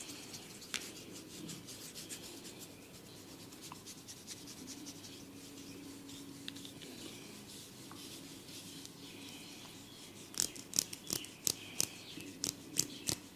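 Steady rubbing and rustling of a head massage on hair and scalp. From about ten seconds in it turns into a quick run of sharp cracks, several a second.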